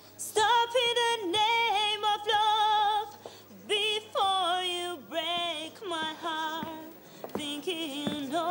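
A young woman singing unaccompanied, practising a song in a run of held notes and short phrases with brief breaks about three seconds in and about seven seconds in.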